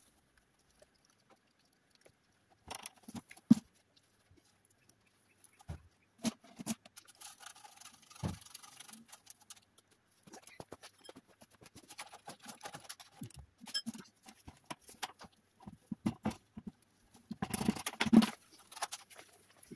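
Runny small-aggregate concrete being tipped from a plastic bucket into a chute in the base of a hollow steel patio post and worked in by hand: irregular knocks and scrapes, with a sharp knock a few seconds in and a longer, louder pour near the end.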